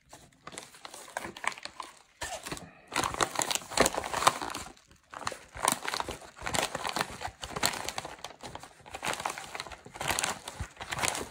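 Brown kraft-paper mailing envelope crinkling and rustling in irregular bursts as it is handled and a cardboard model-kit box is slid out of its torn opening.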